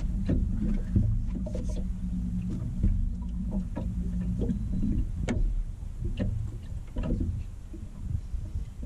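A small boat on the water: wind buffeting and water lapping and knocking against the hull, with a steady low hum that stops about four and a half seconds in.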